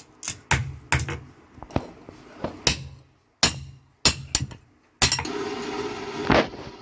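Hand hammer striking red-hot iron on a steel anvil: sharp metallic blows at an irregular pace. About five seconds in these give way to a steady rush of an air-blown forge fire, with one more sharp clank.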